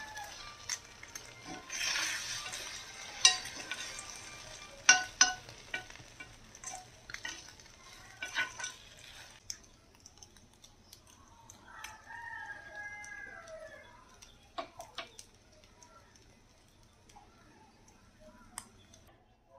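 Egg batter sizzling in an unniyappam pan, with sharp clinks of a utensil against the pan as the pieces are turned during the first half; the sizzle drops away after about nine seconds. About twelve seconds in, a rooster crows once.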